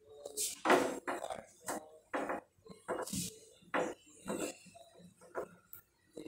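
Cloth wiping a whiteboard clean in quick back-and-forth strokes, a short swish roughly twice a second.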